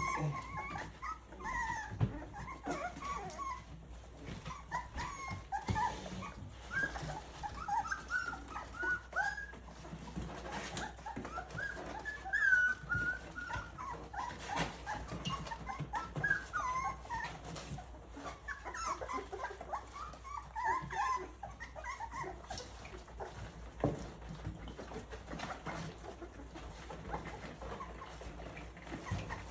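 Several three-week-old Rottweiler puppies whimpering and squealing, a continual overlapping chorus of short, high, wavering cries, with scattered soft clicks.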